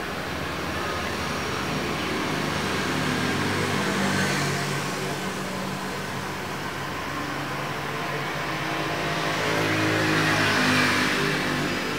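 Steady engine-like rumble with hiss, swelling louder about four seconds in and again near the end, as of motor vehicles passing.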